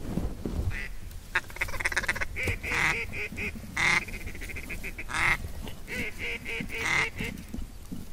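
Loud duck quacking and rapid chatter, coming in a series of bursts with short gaps between them.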